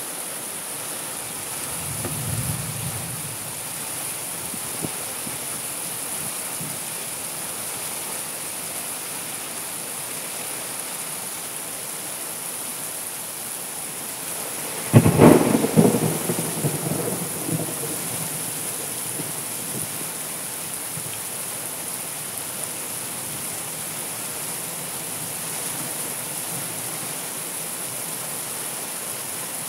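Steady rain falling throughout, with a low thunder rumble about two seconds in. About halfway through comes a sudden loud thunderclap that rolls away over a few seconds.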